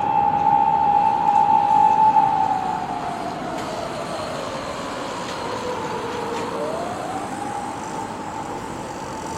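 Japanese police car siren wailing: a long high tone that slides slowly down to a lower pitch, holds briefly, then about six and a half seconds in rises again and holds high.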